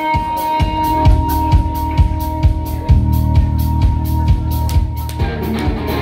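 Rock band playing live through a PA: a steady drum beat with kick drum about twice a second and cymbals, bass and electric guitar. A single held note rings over it and stops about five seconds in, where the band shifts into the next part.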